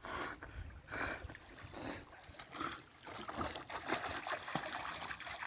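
A swimming dog's paddling strokes splashing and sloshing water, in repeated surges about a second apart.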